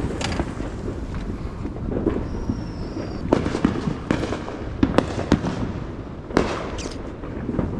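Fireworks going off: a series of sharp bangs and pops, several close together in the second half, over a steady low rumble. A short high whistle sounds a little over two seconds in.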